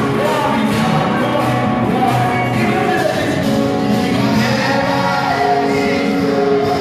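Live gospel worship music: singers' voices amplified through handheld microphones over a keyboard backing, continuing without a break.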